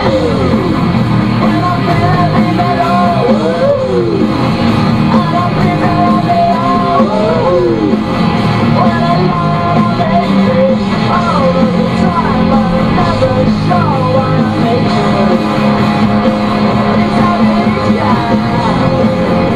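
Rock song with guitar and singing playing on the car radio.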